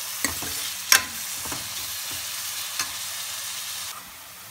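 Chopped onions sizzling in hot desi ghee in a kadhai, stirred with a metal spoon that clicks and scrapes against the pan. There is one sharper knock about a second in, and the sizzle drops quieter near the end.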